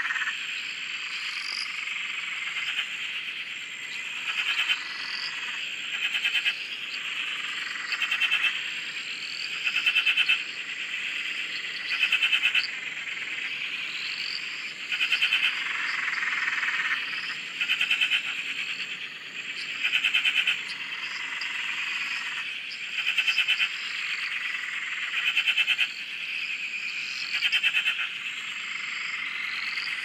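Frog chorus: a small tree frog gives loud pulsed trilling calls, each about half a second long, roughly every two seconds, over a steady background of many other frogs calling.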